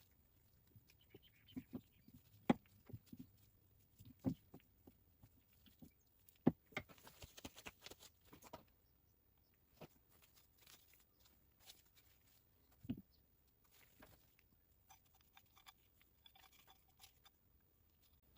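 Faint handling noise from a spray-drone pump being reassembled: scattered clicks and knocks with soft rustling as lubricated rubber tubes are worked into the pump housing. A few sharper taps come in the first seven seconds and one more past the middle.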